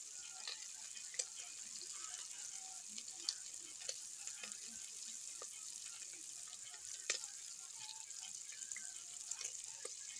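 Cubed pork frying and browning in its own rendered fat in a metal pot: a steady sizzle with scattered sharp pops of spattering fat, the loudest about a second, three seconds and seven seconds in.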